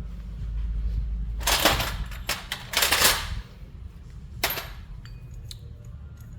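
Metal parts of a motorcycle steering damper being handled and taken apart by hand: a few scraping, rattling noises about a second and a half in, near three seconds and again near four and a half seconds, then light clicks.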